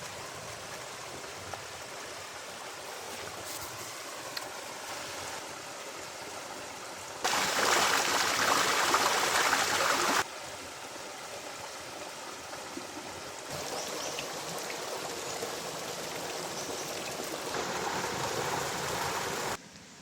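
Running water of a stream, a steady rushing hiss whose level jumps at several abrupt cuts. It is loudest and fullest from about 7 to 10 seconds in.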